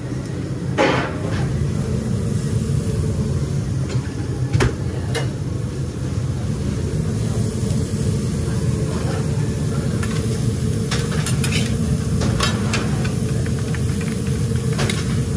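Sliced steak, onions and green peppers sizzling on a flat-top griddle over a steady kitchen hum, with a knock about a second in. In the last few seconds metal spatulas click and scrape on the griddle as the meat is worked.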